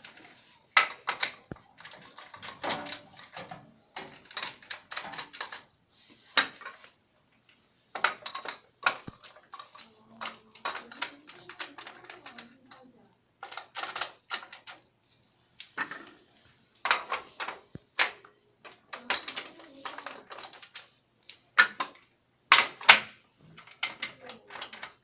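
Irregular clusters of sharp clicks and knocks, like hard parts being handled and clattering, with short pauses between the clusters and a faint steady hiss underneath.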